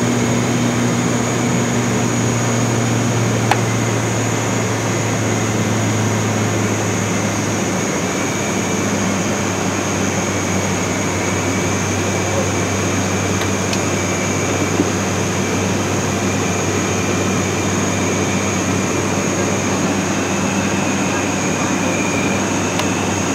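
Cockpit noise of an ATR 42-600 under power: a loud, steady drone from its two Pratt & Whitney PW127M turboprops and six-blade propellers. The low propeller hum drops slightly in pitch about eight seconds in.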